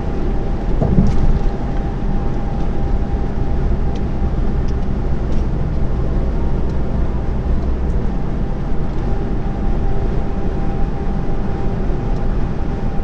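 Steady drone of a delivery lorry's engine and tyre noise heard inside the cab while cruising at motorway speed, with a faint steady whine above it.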